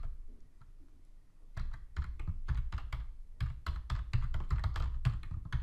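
Typing on a computer keyboard: a quick run of keystroke clicks starting about one and a half seconds in.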